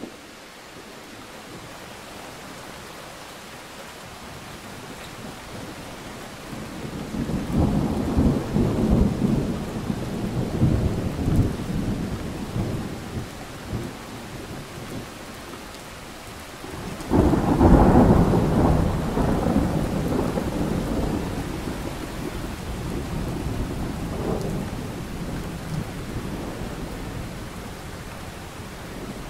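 Steady rain with two rolls of thunder. The first rumble builds about a quarter of the way in and dies down. A louder one starts suddenly a little past halfway and rumbles away over several seconds.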